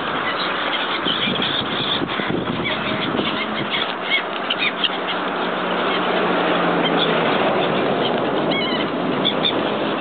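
A flock of waterfowl calling: a dense, steady chatter of birds, with many short high calls and glides over it.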